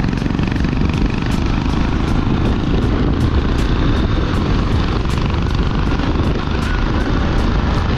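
Steady low wind rumble on an action camera's microphone from a motorcycle riding at speed, over the running of a Honda X-Blade 160's single-cylinder engine.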